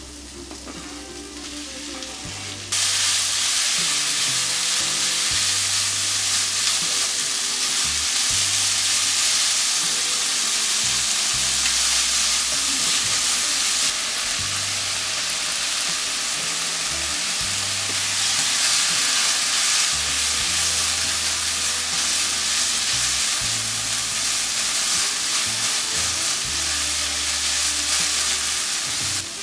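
Seaweed stalks and minced garlic sizzling in hot oil in a frying pan as they are stir-fried; the sizzle jumps up suddenly about three seconds in as the stalks hit the oil, then holds loud and steady.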